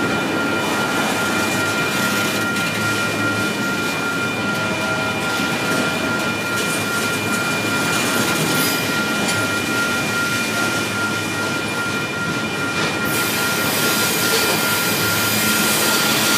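Freight train of double-stack container well cars rolling past at a grade crossing: a continuous clatter and rumble of wheels on rail, with a steady high-pitched tone running through it. The sound grows a little louder near the end.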